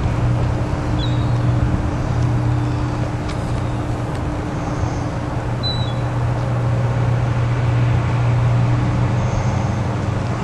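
Steady low motor rumble with a faint steady hum under it, and a few brief, faint high chirps.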